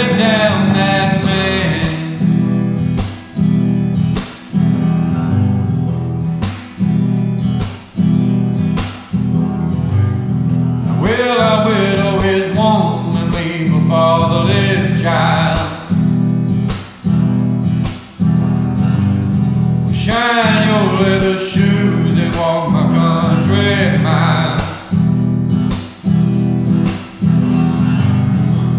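Acoustic guitar strummed in a steady rhythm with short stops between phrases, and a man's voice singing over it in two stretches, about ten seconds in and again about twenty seconds in.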